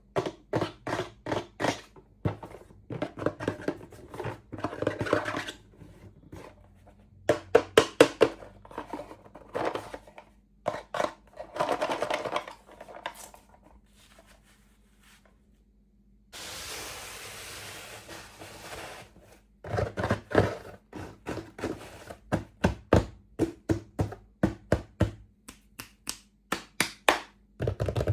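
Hands handling small plastic toy pieces and packaging: quick runs of sharp taps, clicks and thunks. A little past the middle, about three seconds of steady hiss.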